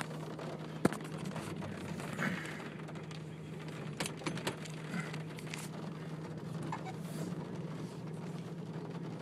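Inside a car in a rainstorm: rain on the windshield and roof with a handful of sharp ticks of drops striking the glass, over the steady low hum of the car's running engine.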